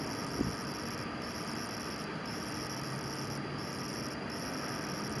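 Night-time crickets chirping in a steady chorus of high-pitched trills that break off briefly about once a second, over a faint hiss, with one short low thump about half a second in.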